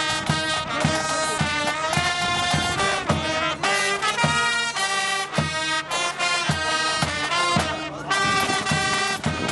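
Marching band playing: brass horns hold a tune over a steady drum beat.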